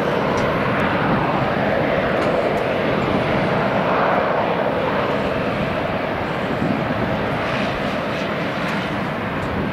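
Jet engines of an Airbus A321-211 running steadily as the airliner taxis: an even rushing hum that does not change.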